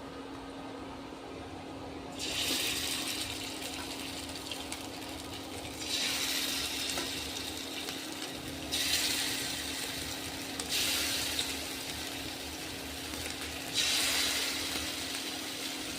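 Hot oil sizzling in bursts as pieces of chicken are dropped in for frying. Each burst starts sharply and fades over a second or two, about five times, over a steady low hum.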